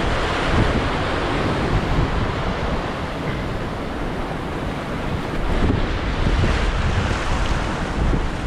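Ocean surf washing and breaking over a rocky shoreline, rising and falling with the swells, with wind buffeting the microphone as a low rumble.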